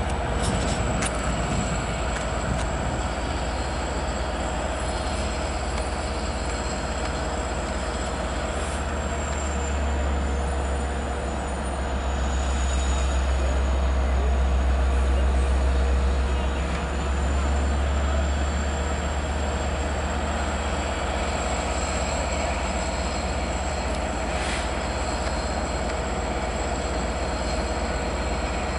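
Long Island Rail Road DM30AC/DE30AC diesel locomotive running as its train comes into the station: a deep, steady engine rumble that swells for a few seconds in the middle, with a thin high whine held above it.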